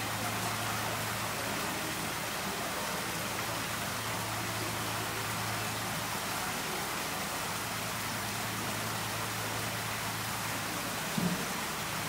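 Water falling in many thin streams through a bamboo slat grate and splashing steadily into a stone tank of live sweetfish (ayu), sounding like steady rain. A low hum runs underneath, and a short low thud comes near the end.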